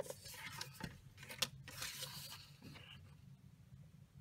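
Stiff cardstock sliding and rustling over the plastic base of a paper trimmer as it is moved into position, with a couple of light clicks about a second in. Fainter toward the end.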